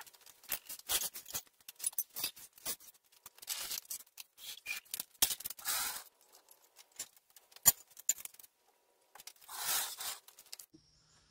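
Tools and shop equipment being picked up and moved on a concrete garage floor: a string of clinks and knocks with a few longer scrapes, the sharpest knock about three-quarters of the way through.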